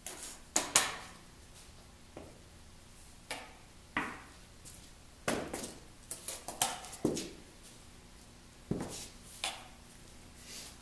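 Steel brick trowel scooping mortar from a wheelbarrow and slapping and scraping it down onto a concrete floor to lay a base: a dozen or so sharp knocks and scrapes, spaced unevenly.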